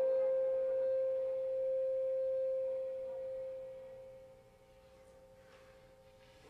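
A clarinet holding a single, nearly pure note that slowly fades away, dying almost to silence about four seconds in, with only a faint trace of breath after.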